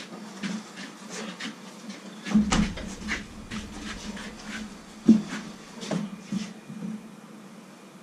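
Wooden stretching frame with a polar bear hide laced on it knocking and scraping as it is handled and stood upright. There are irregular knocks, the loudest about two and a half and five seconds in, over a steady low hum.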